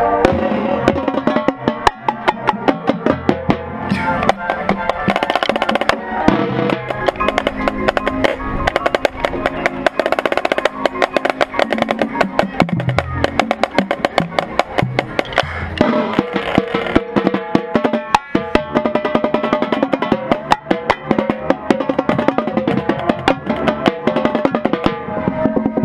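Marching band playing at full volume: brass and woodwinds sounding sustained chords over a drumline of snare and bass drums keeping a steady, busy beat.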